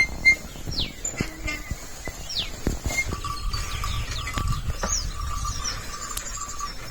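Outdoor rural sounds: short bird calls that fall sharply in pitch repeat every second or two. Underneath are a low rumble and scattered knocks, and from about halfway a faint, steady, pulsing high tone.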